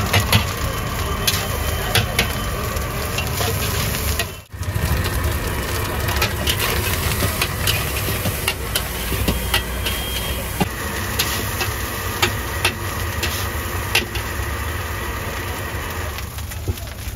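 A long metal spatula scraping and clanking against a large iron wok as fried rice is stir-fried, with frequent sharp clicks over a steady low rumble and sizzle. The sound drops out briefly about four seconds in.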